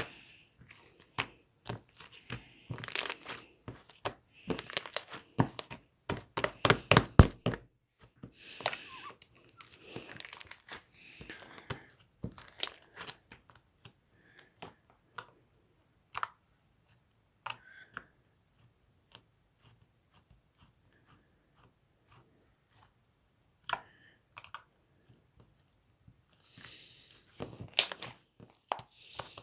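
Hands working a slime: irregular crackling and popping clicks, in dense runs over the first few seconds and again near the end, with scattered single pops in between.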